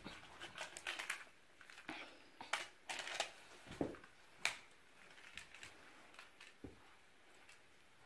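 Faint, irregular clicks and taps of small toy cars and magnetic building tiles being handled and set down.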